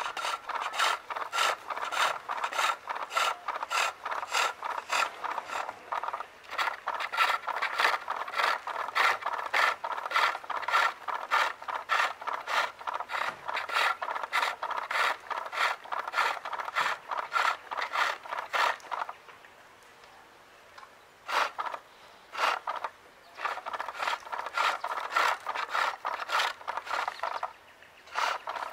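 Skew chisel cutting maple on a foot-powered pole lathe: a rhythmic shaving, rasping sound in quick repeated strokes as the treadle drives the work back and forth. The cutting stops for about two seconds past the middle, then resumes with a couple of short breaks.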